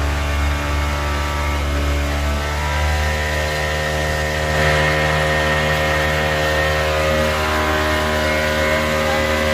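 Outboard motor of a small passenger boat running steadily under way, a constant engine drone.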